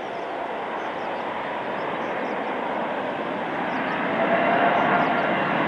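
Airbus A380 on final approach, its four turbofan engines making a steady rushing jet noise that grows louder as the aircraft nears. A faint engine whine rises out of it about four seconds in.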